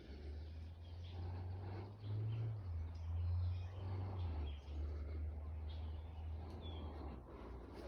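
A steady low rumble that stops about seven seconds in, with a haze of outdoor background noise and a few faint bird chirps.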